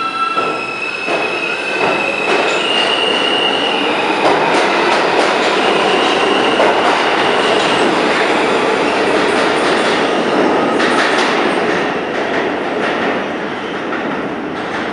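NYCT R160A subway train accelerating away from the platform. Its traction motors whine in tones that step up in pitch at the start, then comes a loud rumble and clatter of wheels on the rails, with a brief wheel squeal about three seconds in. The noise eases a little near the end as the train pulls away.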